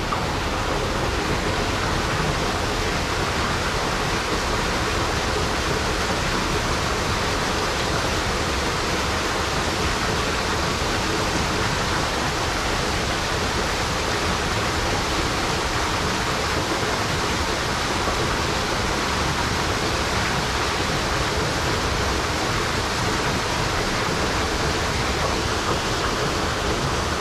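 Steady rushing of falling water, an even noise with no break or change.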